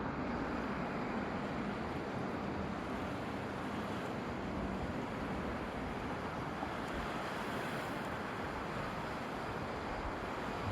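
Sea surf washing on the shore in a continuous, even rush of noise.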